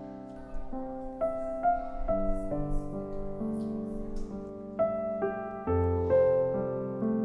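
Background music: a light piano tune of notes and chords struck one after another.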